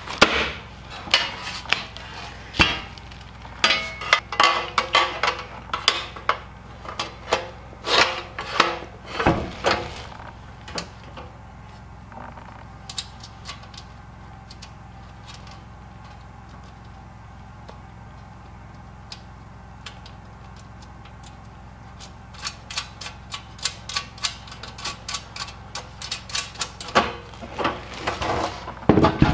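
Galvanized sheet-metal stovepipe fittings and loose screws being handled: irregular metallic clinks, taps and rattles, dense for the first ten seconds or so, sparse through the middle, then busy again near the end.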